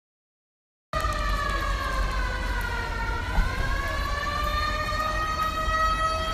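After about a second of silence, a siren starts wailing suddenly. Its pitch falls for about two seconds, then rises again and holds steady.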